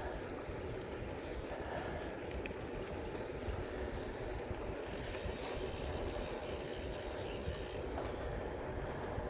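Bicycle riding noise: a steady rumble of tyres over gravel and wind on the microphone, with a higher hiss joining in from about five seconds in until about eight seconds in.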